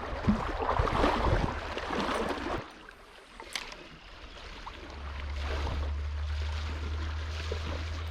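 Trout-stream ambience: moving water with rustling and splashing in the first couple of seconds, then, from about halfway through, a steady low wind rumble on the microphone.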